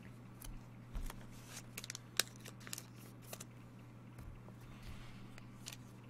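Faint scattered clicks and taps from trading cards and foil packs being handled, over a steady low electrical hum.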